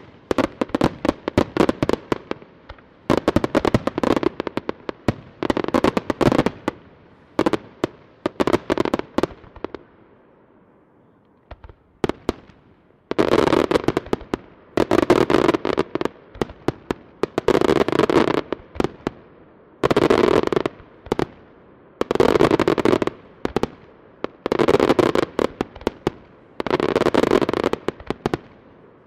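Aerial firework shells bursting in rapid salvos, each salvo a dense cluster of sharp bangs and crackles. There is a short lull about ten seconds in, then the salvos come about every two seconds.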